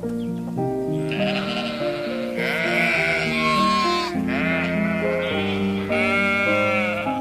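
An animal bleating several times in long, quavering calls over background music with steady held notes.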